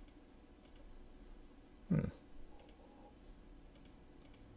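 Faint computer mouse clicks, a few of them in quick pairs, with one short low grunt-like voice sound about two seconds in.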